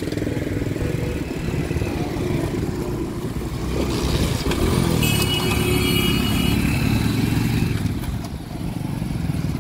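Several motorcycles and scooters pulling away together, their small engines running and revving as they ride past close by, loudest in the middle as the bulk of them pass.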